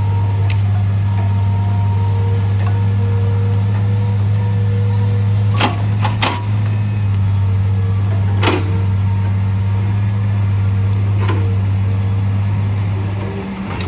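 Diesel engine of a Cat tracked log loader running with a steady low drone while its grapple handles logs. Several sharp knocks cut through it, two close together about six seconds in and another a couple of seconds later, as the logs are set down onto the pile.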